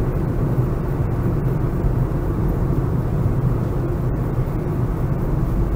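Steady low rumble of a car driving at road speed, with tyre and engine noise heard from inside the cabin.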